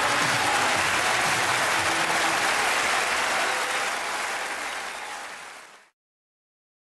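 Applause at the end of a live song recording, with a last trace of the music under it, fading away and cutting to silence about six seconds in.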